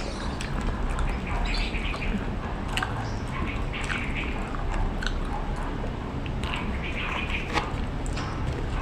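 A person chewing food close to the microphone, with irregular wet clicks and smacks about once a second over a steady low hum.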